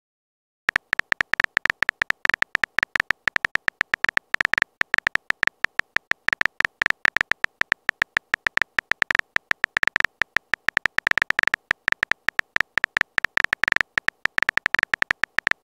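Smartphone on-screen keyboard typing sound effect: a rapid, uneven run of short key-tap clicks, each with the same high tone, as a message is typed out letter by letter. It starts after a brief pause.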